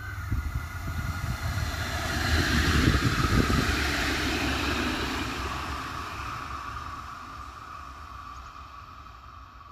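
A tram passing close on overland track: its wheels rumble on the rails, with a steady high whine alongside. The sound builds to a peak about three seconds in, then fades as the tram runs away.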